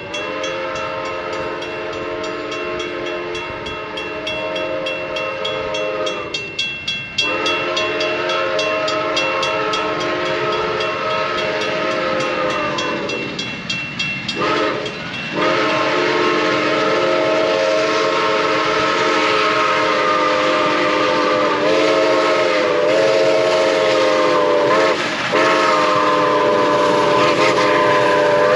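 Iowa Interstate 2-10-2 steam locomotive No. 6988's whistle blowing the grade-crossing signal as the train approaches at speed: two long blasts, a short one, then a final long blast held to the end. The locomotive's exhaust beats sound under the whistle, and the whole grows louder as it nears.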